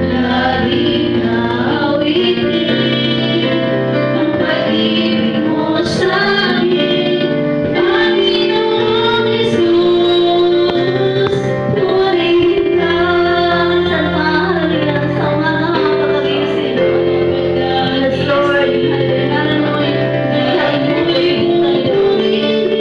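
Women singing a worship song together into microphones through a PA, over amplified instrumental accompaniment with sustained bass notes.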